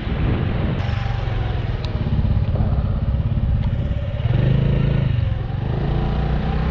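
Small motorbike engine running steadily as it rides along, under a rushing noise. The low engine hum grows louder for about a second around four seconds in.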